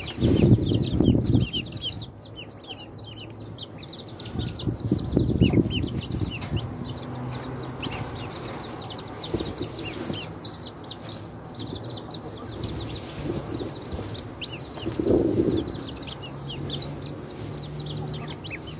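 Chicks and ducklings peeping continuously in rapid, high, short chirps. A few louder, low, muffled bursts come through at the start, about five seconds in and about fifteen seconds in.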